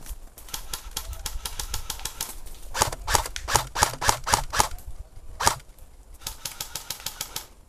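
Airsoft guns firing as strings of sharp clicking shots. Faster, fainter runs come near the start and near the end. A louder run of about five shots a second comes in the middle, and one louder single shot follows about five and a half seconds in.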